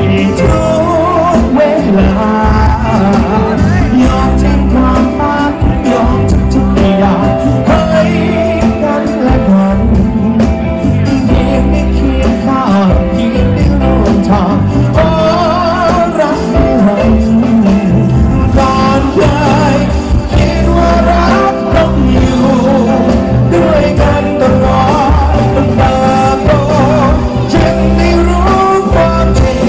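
Live band playing loud, with a male singer singing into a microphone over electric guitars and a steady beat.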